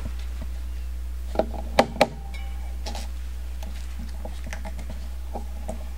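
Three sharp knocks close together, between about one and a half and two seconds in, as hands work handlebar tape around a road bike's brake lever, over a steady low hum.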